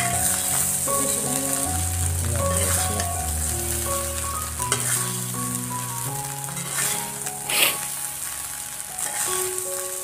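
Fried rice with peas and carrots sizzling in a hot metal pan while a spatula stirs and scrapes through it. There is a louder scrape about three-quarters of the way through.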